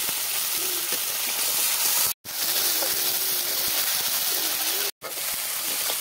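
Spice paste frying in hot oil in an iron kadhai: a steady sizzling hiss while a spatula stirs it. The sound cuts out completely for a moment twice, about two and five seconds in.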